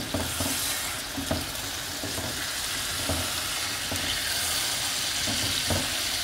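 Egg sauce of eggs, tomatoes and fish frying in oil in a pan, with a steady sizzle. A spatula turns it gently, giving a few soft scrapes and knocks against the pan.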